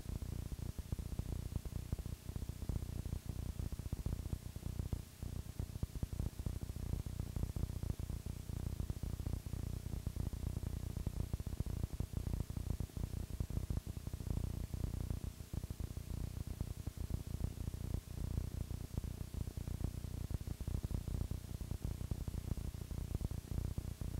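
Static from a blank stretch of recording: a steady low rumble full of dense crackle, with a faint hum underneath.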